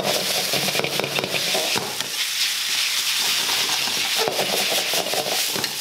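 Chow mein noodles and vegetables sizzling in a wok over high heat, with sauce just drizzled in. They are stirred and tossed throughout, with frequent sharp scrapes and clicks of the utensil against the wok over a steady hiss.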